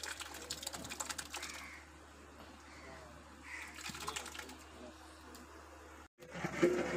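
Sour yogurt poured into hot spiced oil and onion paste in a large aluminium cooking pot, sizzling and spattering as a rapid fine crackle in two bursts, the first in the first second or so and the second about three and a half seconds in.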